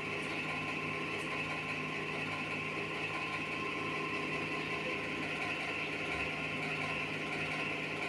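Longhaired cat purring steadily, a continuous machine-like rumble with a fast flutter and no break.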